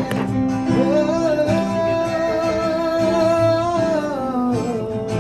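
Music: a song with guitar and a singing voice, the voice holding one long note from about a second in until near the four-second mark.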